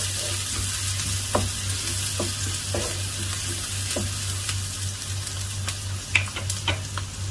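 Chopped onions sizzling steadily in hot ghee in a non-stick wok as they fry toward light brown, with a wooden spatula scraping and knocking against the pan now and then. A steady low hum runs underneath.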